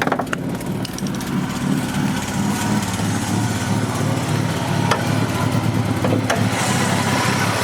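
Ford Probe GT's KL-ZE 2.5-litre V6 running at idle, with a few short sharp clicks over the engine note. The idle is the misfiring, erratic one the owner is trying to diagnose; he wonders whether it is a vacuum leak.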